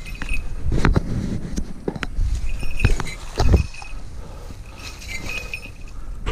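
Hurried footsteps rustling through grass and dry leaf litter, with knocks and handling thumps from a jostled body-worn camera. A few short high ringing notes come and go.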